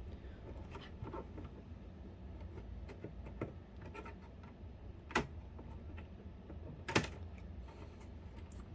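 Faint handling noises over a low hum: small scrapes and taps of plastic parts and cables being fitted by hand inside a PlayStation 3, with two sharper clicks about five and seven seconds in.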